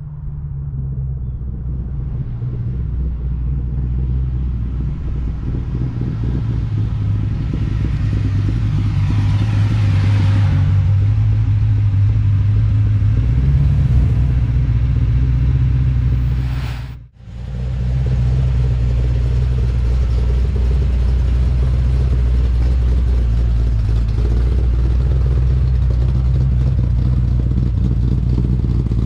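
A 454 cubic-inch big-block V8 in a 1967 Chevrolet C10 pickup idling with a steady low rumble. A rising whoosh passes over it about a third of the way in, and the sound cuts out for a moment past the middle before the idle resumes.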